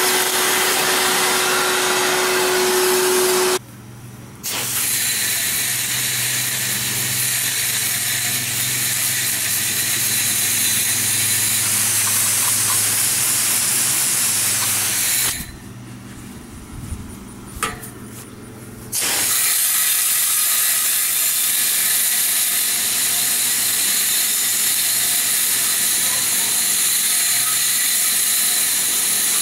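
Coil cleaner being sprayed onto an air-conditioner evaporator coil: a loud, steady spray hiss in long runs. It breaks off briefly about four seconds in and for several seconds past the middle.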